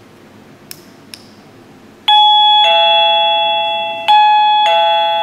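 Model 823A wireless door chime playing an electronic ding-dong twice: a higher note drops to a lower one, and each pair rings on and fades slowly. Two light clicks come about a second before the first ding-dong.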